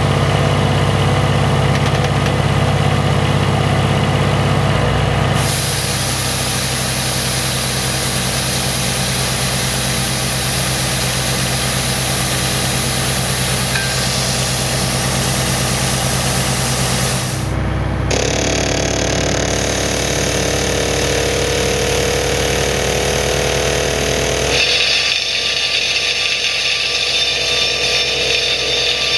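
Excavator-mounted hydraulic rock drill (a self-contained attachment drill) running with its carrier's engine: a loud, steady machine noise. The sound changes abruptly about five seconds in, again past the middle, and once more near the end, where it turns harsher and higher-pitched as a drill bores into rock.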